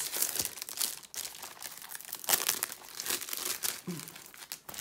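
Clear plastic packaging sleeve crinkling and rustling in irregular bursts as it is pulled off a rolled diamond painting canvas, loudest a little past halfway.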